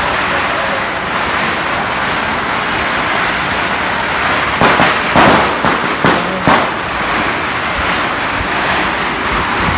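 Fireworks and firecrackers going off in a dense, continuous din, with a quick run of loud bangs about halfway through.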